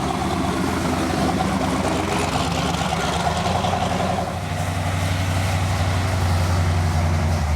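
A car engine running at low speed, a steady low engine note that gets stronger and deeper about halfway through as the car pulls in or idles close by.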